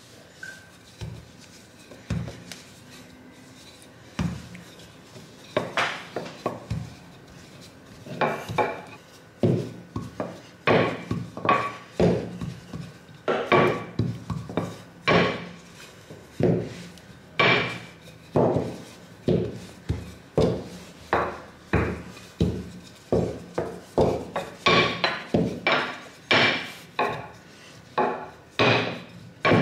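Wooden rolling pin rolling out a sheet of noodle dough on a floured countertop, knocking and rubbing against the counter with each back-and-forth stroke. The knocks are scattered at first, then come quickly and regularly, about two a second, from about eight seconds in.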